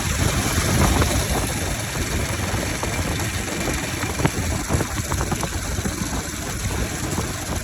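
Bajaj Pulsar 200 motorcycle's single-cylinder engine idling unevenly with its air filter removed, with a few sharp pops, the loudest about four seconds in.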